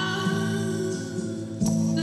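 A song playing: a held sung note over sustained instrumental backing.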